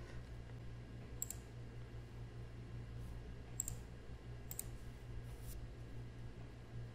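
A few faint computer keyboard keystrokes, single clicks spaced roughly a second apart, as a short number is typed. A low steady hum runs under them.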